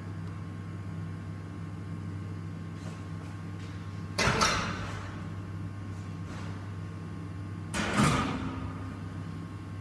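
Steady low machinery hum, broken twice, about four and eight seconds in, by a short, loud, noisy burst like a clatter or bang.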